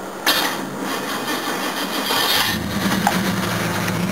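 Jaguar XJ12 engine hot-started after a long drive in 45 °C heat: the starter cranks for about two seconds, then the engine catches and settles into a steady idle.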